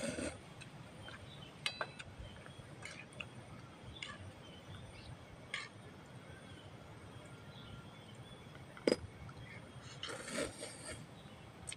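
Eating from a metal cooking pan: a utensil clinks and scrapes against the pan in scattered small ticks, with one sharp click about nine seconds in. Noodles are slurped and chewed around ten seconds in.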